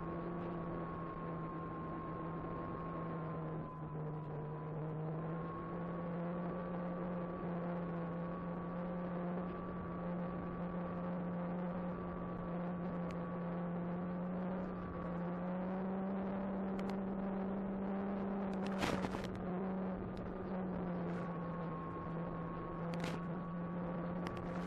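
Electric motor and propeller of an Apprentice 15e RC trainer plane whining steadily in flight, its pitch drifting slightly up and down with throttle. A few brief crackles cut in late on.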